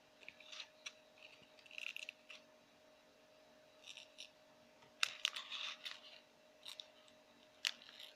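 Thin clear plastic bag crinkling and crackling under fingers as it is handled and turned over, in short irregular bursts, with a few sharper crackles about five seconds in and near the end.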